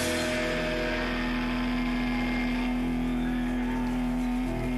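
Distorted electric guitar and bass amplifiers holding a final chord, ringing out as a steady drone with no drums. A thin, high feedback whistle comes in near the end.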